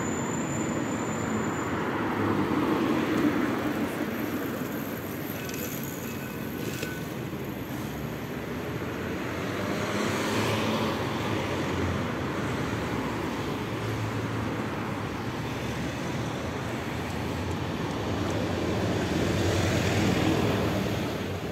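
Road traffic noise from passing vehicles, a steady rumble that swells about three seconds in and again near the end.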